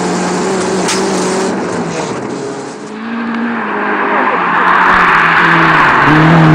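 Rally car engine running steadily, heard from inside the cabin; after about three seconds it gives way to a rally car approaching on a snow-covered stage, its engine note joined by loud tyre and thrown-snow noise that swells as the car passes close.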